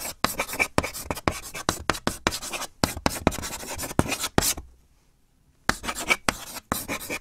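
Chalk writing on a blackboard: a fast, irregular run of short scratchy strokes. It stops for about a second a little before five seconds in, then resumes briefly.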